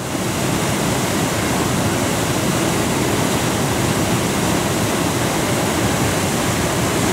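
Ohiopyle Falls, a wide waterfall on the Youghiogheny River, pouring over its rock ledge and churning in the pool below, a steady full rush of falling water that fades in at the start.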